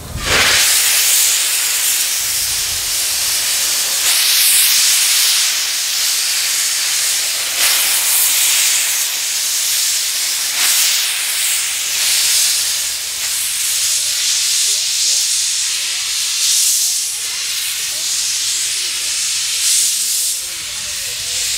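Steam locomotive C56 160 (JNR Class C56) venting steam: a loud, continuous hiss that starts suddenly and carries on with slight swells.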